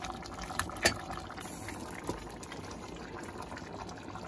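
Chicken stew with potatoes and carrots simmering in a pot, a steady wet bubbling, while a wooden spatula scoops pieces out and knocks lightly against the pot a few times.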